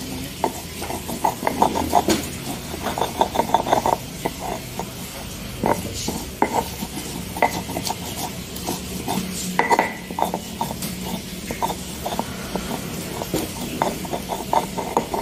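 Stone pestle grinding and pounding red bird's-eye chilies and garlic on a flat stone mortar (ulekan on cobek). Irregular rapid knocks and gritty scrapes of stone on stone, crushing the chilies and garlic toward a fine sambal paste.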